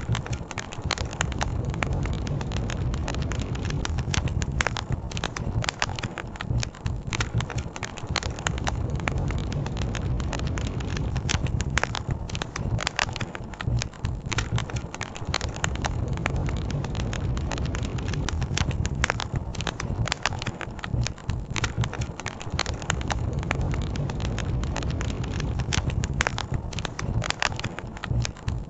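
Wood campfire crackling and popping in dense, irregular snaps over a steady low rumble.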